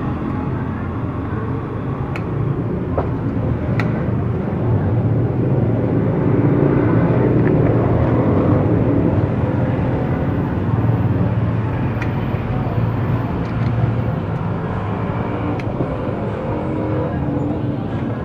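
Steady motor-vehicle and street traffic noise: a low, continuous engine rumble with a few faint ticks.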